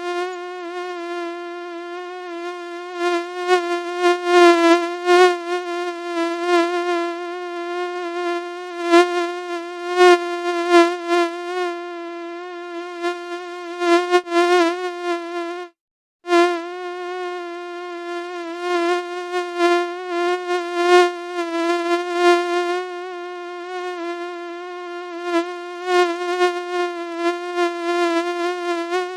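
Mosquito wing whine: a buzz held at one pitch with many overtones, wavering slightly and swelling and fading in loudness. It breaks off for about half a second roughly halfway through.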